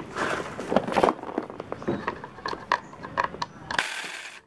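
Handling and fitting the plastic and metal parts of a grinder chainsaw attachment: a run of small irregular clicks, taps and rattles, with a short rasping scrape near the end.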